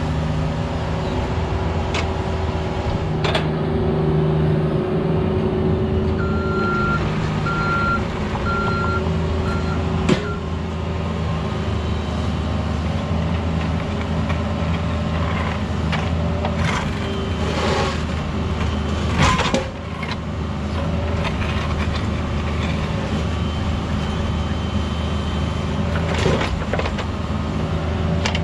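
Cat 304 mini excavator's diesel engine running steadily under digging load, with knocks and scraping as the bucket works broken blacktop and dirt, the loudest knock about two-thirds of the way through. A series of short high beeps from a travel or backup alarm sounds about six seconds in.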